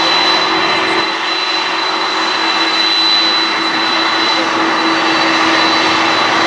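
Boeing 747-400's GE CF6 turbofan engines running steadily as the airliner taxis, a loud even jet rumble with a high fan whine.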